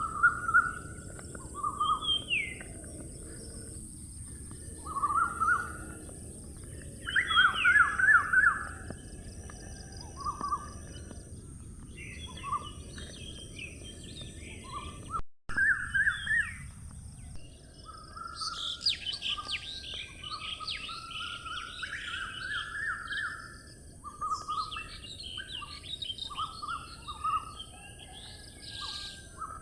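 Several birds chirping and singing in short, repeated phrases and trills, over a steady high hiss. The calling grows busier in the second half, after a brief dropout about halfway through.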